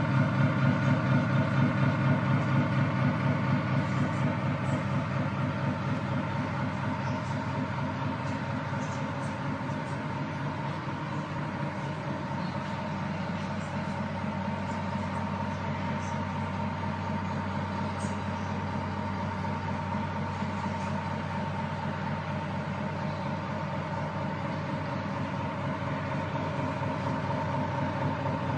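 Simulated Scania V8 engine idling from the sound module of an RC Scania R730 model truck: a steady, low, pulsing idle, a little quieter after the first few seconds.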